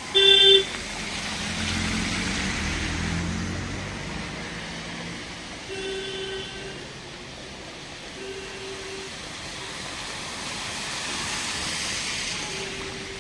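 A car horn beeps loudly once right at the start. A car then drives past through the standing water on the flooded road, and shorter, quieter horn beeps follow around the middle and near the end as another car approaches.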